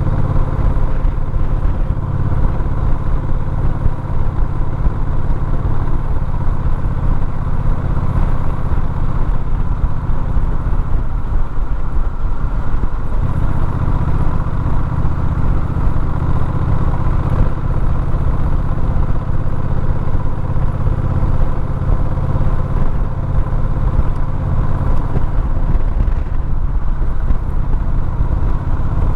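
Road vehicle engine running steadily while driving along a winding mountain road, its note dropping briefly about twelve seconds in before settling again.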